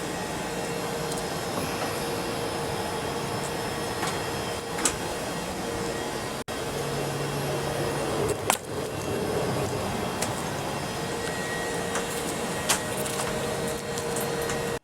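Steady mechanical hum of the International Space Station's cabin ventilation fans and equipment, with a few steady tones in it. A few short knocks sound over it, about five, eight and a half, and thirteen seconds in.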